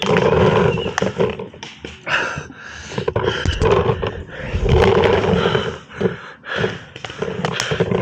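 Heavy, hard breathing close to the microphone, with rasping breaths in and out about once a second and a few short sharp clicks in between.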